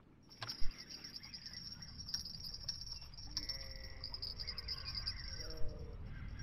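Quiet outdoor ambience: a steady high-pitched insect-like chirring, with faint pitched animal calls, bleat-like, in the middle and later part.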